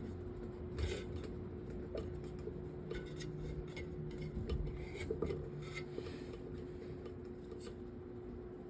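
Small metal table fan parts being handled and fitted together: scattered light clicks, taps and scraping of metal on metal.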